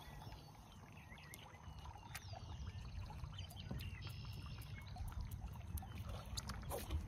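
Quiet open-water ambience: a low steady rumble with scattered faint bird chirps and a few light clicks.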